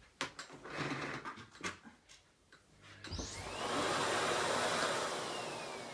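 Clicks and knocks of the plug and cord being handled, then about three seconds in the Miele Complete C3 Powerline vacuum cleaner's motor switches on with a rising whine and runs loudly. Near the end the motor winds down, its whine falling in pitch and fading.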